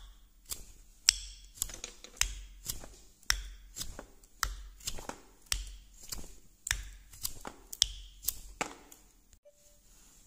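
Carving knife slicing chips from a wooden block by hand, each stroke ending in a crisp click as the chip breaks away, about two cuts a second; the cutting stops near the end.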